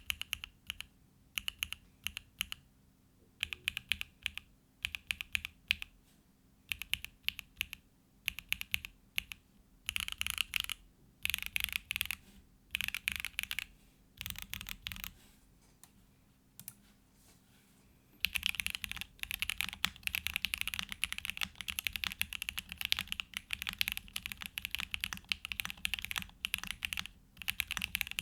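Mechanical keyboard with hand-lubed Gateron Oil King linear switches, a polycarbonate plate, case foam and JTK FC Classic keycaps being typed on. Short bursts of keystrokes with pauses between them, a brief lull a little past halfway, then steady fast typing through the rest.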